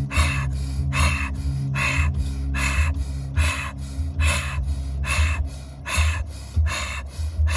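Rapid, forceful rhythmic breathing: hard breaths drawn in and pushed out in an even rhythm of about one strong breath a second, each a sharp rush of air. A low steady hum runs beneath.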